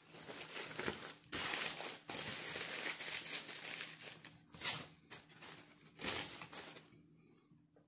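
Foil-lined paper sandwich wrapper crinkling as it is handled and folded, in uneven bursts that stop about a second before the end.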